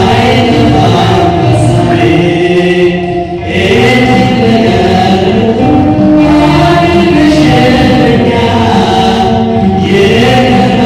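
Live Oromo gospel praise song sung into a microphone through a PA, with instrumental backing; the music eases briefly about three seconds in.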